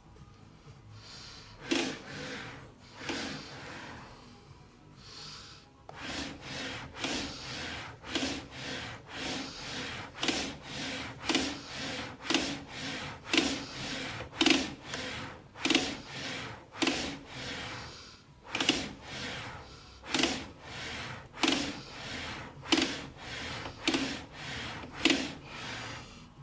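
Epson Stylus Pro 4880 large-format inkjet printer with its print-head carriage shuttling back and forth. It makes a rhythmic swish about twice a second, and a short knock recurs with the strokes, coming from a faulty carriage belt tensioner mechanism.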